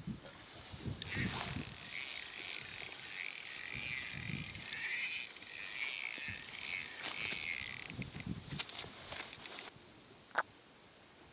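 Fishing reel running with a fast, high-pitched mechanical whirr for about eight seconds, broken briefly about halfway. A short sharp chirp comes near the end.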